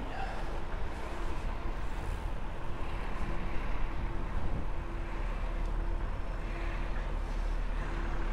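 Wind rumbling on a lavalier microphone on a moving bicycle, over steady road traffic noise, with a faint hum that comes and goes.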